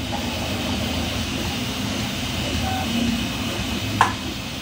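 Hard 3D-printed plastic parts of a toy vehicle model handled and pressed together, with one sharp click about four seconds in, over a steady rushing background noise.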